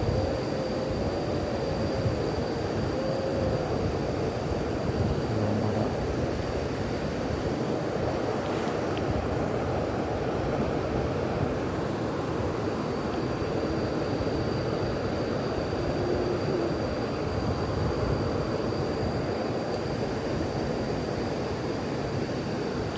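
Steady rushing of swift-flowing stream water, an even noise with no breaks, with a thin steady high tone above it.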